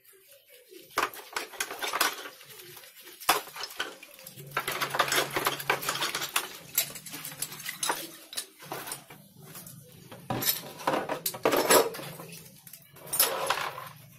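Steel parts of dismantled metal shears being washed by hand in a plastic tub of soapy water: irregular clinking and clattering of metal against metal and against the tub, mixed with water sloshing.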